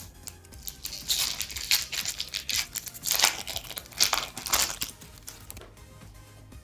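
Foil wrapper of a Pokémon Unified Minds booster pack being torn open and crinkled by hand, a dense run of crackling from about a second in until about five seconds in.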